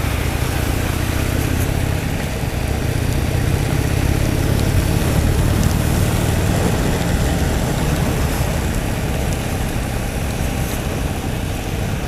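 Harley-Davidson Sportster 883's air-cooled V-twin running steadily while being ridden, under a constant rush of wind and wet-road noise.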